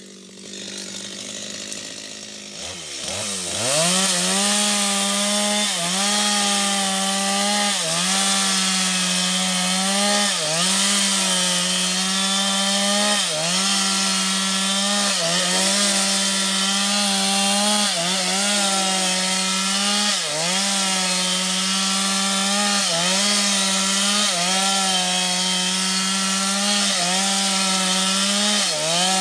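Stihl MS250 two-stroke chainsaw crosscutting a felled sengon log. It starts quieter, then revs up to full throttle about three seconds in and runs steadily. Its pitch sags briefly and recovers every couple of seconds as the chain bites into the wood.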